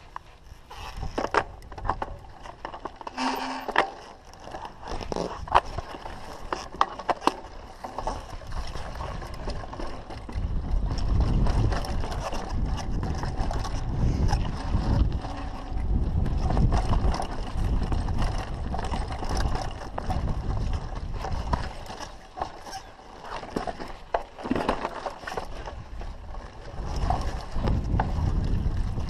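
Mountain bike rolling down a dirt and rock trail, its chain and frame rattling with frequent clicks and knocks over the rough ground. From about ten seconds in, a heavy low wind rumble on the microphone joins the rattling.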